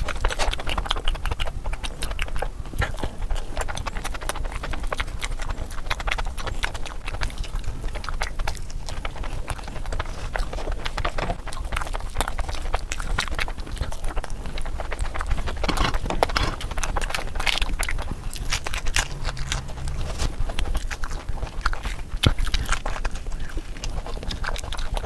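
Close-miked chewing of oily mutton fat curry and puri: a dense, continuous run of wet mouth clicks and smacks.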